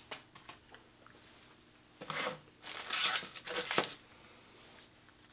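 Snack packaging crinkling and rustling as a wrapped snack is pulled out of a cardboard box, in several short bursts starting about two seconds in and lasting about two seconds.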